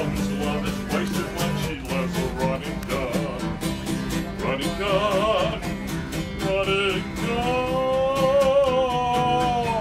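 Acoustic guitar strummed in a steady rhythm while a man sings a country song, holding long, wavering notes from about seven and a half seconds in.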